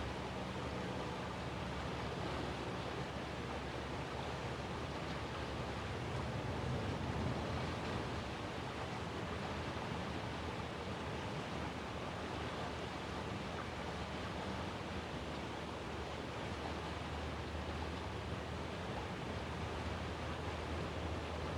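Steady rushing outdoor background noise, like wind, with a faint low hum near the start and again near the end; no siren tone is sounding.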